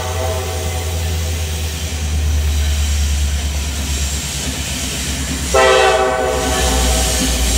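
Norfolk Southern freight train led by SD70ACC locomotive 1801: the diesel engines rumble low as it approaches. About five and a half seconds in, its air horn starts a loud, long multi-note blast, part of its warning for the grade crossing.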